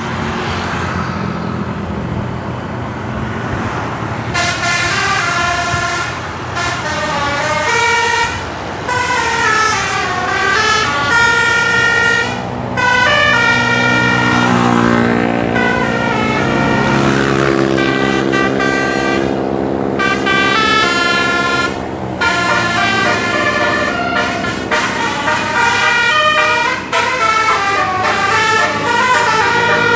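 A bus's 18-note telolet air horn playing a string of melodies, stepping quickly from note to note, with a few brief pauses between tunes.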